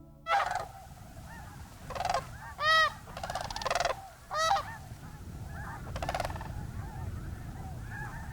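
A flock of sandhill cranes calling: a handful of loud, rolling calls from nearby birds over a constant chorus of many fainter calls. The loud calls thin out after about six seconds, leaving the distant chorus.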